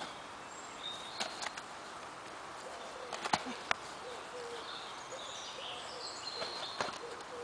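A few sharp smacks of boxing gloves landing during sparring, the loudest pair about halfway through, over open-air background noise with short bird chirps.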